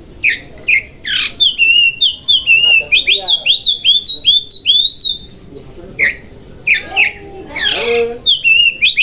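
Oriental magpie-robin (kacer) singing loudly: fast runs of repeated sweeping whistled notes, broken by harsh rasping notes about a second in and again near the end.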